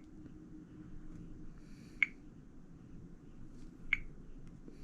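Two short, sharp clicks about two seconds apart from tapping through the menus of a Samsung Admire phone, over a faint low hum.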